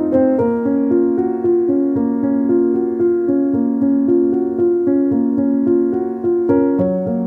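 Background piano music: a gentle melody of sustained notes and chords.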